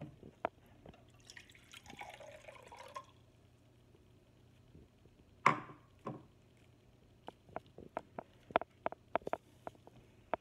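Water poured briefly into a clear drinking tumbler, the pouring sound rising a little as it fills. About halfway through comes one sharp knock, then a run of small clicks and drips.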